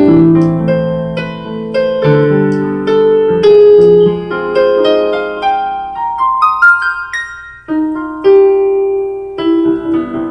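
Solo piano playing slow, sustained chords, with a rising run of single notes about two-thirds of the way through before the chords come back in.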